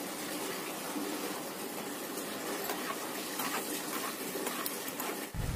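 Cashew nuts sizzling in hot ghee in a small tempering pan. In the second half a spoon stirs them, with a few light clinks against the pan.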